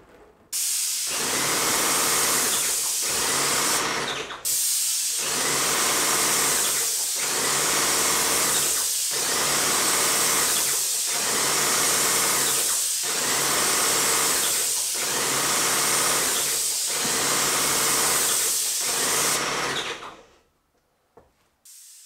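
Airless paint sprayer spraying: a loud, steady hiss of paint from the gun with a rhythmic pulse about every two seconds. It breaks off briefly near four seconds in and stops shortly before the end.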